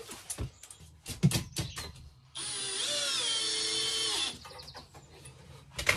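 Cordless drill-driver running for about two seconds as it drives in a fixing, a steady whine that dips in pitch just before it stops. A few sharp knocks of tools and fixings being handled come before it.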